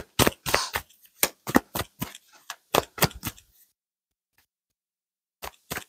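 Tarot cards being handled and shuffled: a run of crisp, irregular card snaps and clicks, a few a second, that stops for a couple of seconds and resumes briefly near the end.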